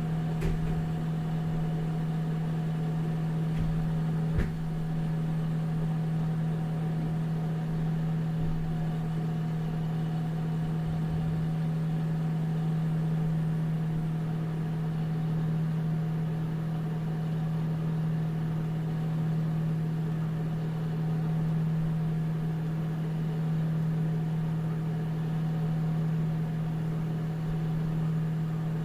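Old National (Panasonic) microwave oven running, a steady low hum with a fainter higher tone above it. There is a short click near the start and another about four seconds in.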